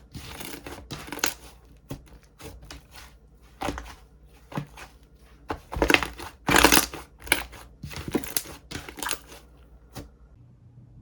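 Slime being squeezed and poked by hand, giving irregular crackling, squishing bursts. The loudest comes about two-thirds of the way through, and the sounds stop near the end.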